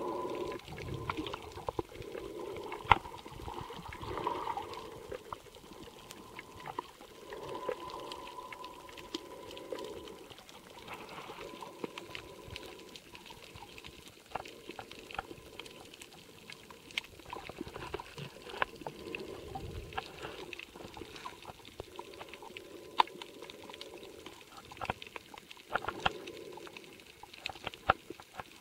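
Underwater sound picked up by a waterproof camcorder's microphone while snorkeling over a reef: muffled watery swishing with many scattered sharp clicks and crackles throughout.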